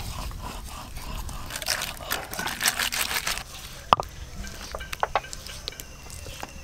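Stone pestle scraped and rolled over wet paste on a flat grinding stone (sil-batta), a gritty crunching scrape that is densest through the middle, followed by a sharp stone-on-stone knock about four seconds in and a few lighter clicks.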